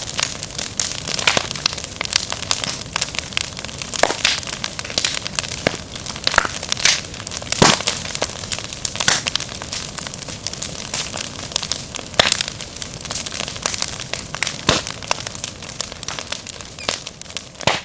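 Fire crackling: a steady hiss with irregular snaps and pops, some much louder than the rest.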